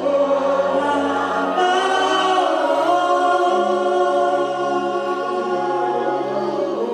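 Choir singing in long held notes.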